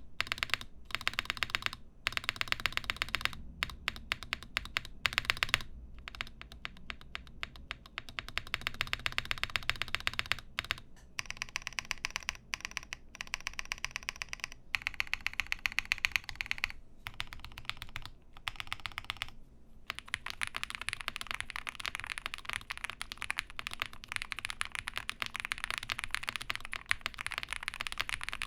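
Jelly Epoch mechanical keyboard with lubed and filmed Durock POM linear switches on a polycarbonate plate and CRP PBT keycaps, typed on steadily in fast runs of key clacks with a few brief pauses.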